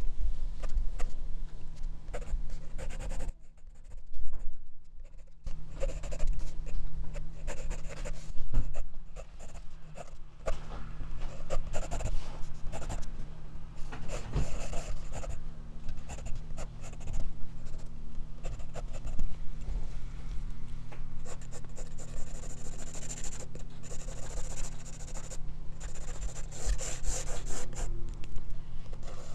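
Graphite pencil scratching and shading on drawing paper, picked up close by a clip-on microphone: fast runs of short strokes, with a pause of about two seconds a few seconds in.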